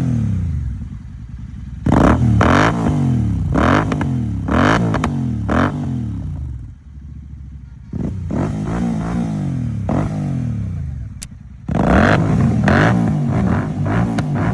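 Royal Enfield Continental GT 650 parallel-twin engines revved in repeated throttle blips through aftermarket Gursewak Big Shot and SSP exhausts, each rev rising and falling about once a second. The clip cuts abruptly between the two bikes several times.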